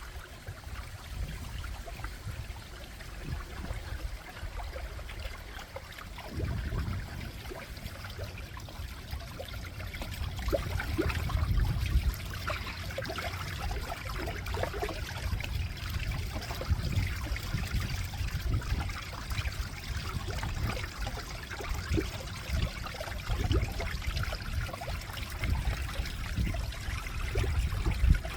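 Small stream of water trickling and gurgling continuously, with a low rumble underneath.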